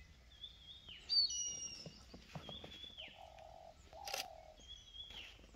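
Wild bird calling four times: each call is a short whistled note held level and then sliding down in pitch, and the second, about a second in, is the loudest and richest. A buzzy sound joins in the middle, and a sharp click comes a little after four seconds.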